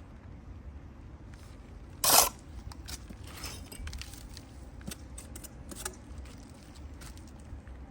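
A sharp, loud scrape about two seconds in, followed by lighter scrapes and scattered clinks of hard objects.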